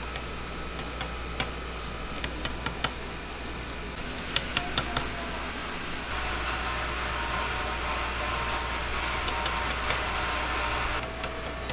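A metal knife taps and scrapes on a plastic cutting board as fish paste is spread and shaped, with a series of sharp clicks. From about six seconds in, hot oil sizzles and bubbles as handmade fish cakes (eomuk) fry in a deep fryer tray.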